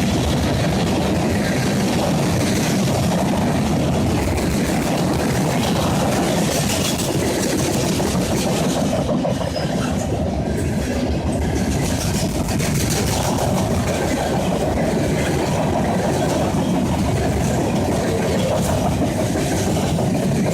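Freight cars of a CSX trash train rolling past at speed, their steel wheels clicking and clattering over the rail joints in a steady, loud run.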